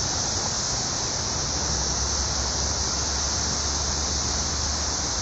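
Dense, steady chorus of 17-year periodical cicadas, a high unbroken buzz. A low hum runs underneath from about a second and a half in.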